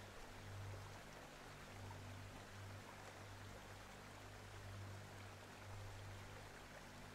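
Very faint, steady hiss like distant running water, under a low hum that swells and fades about once a second.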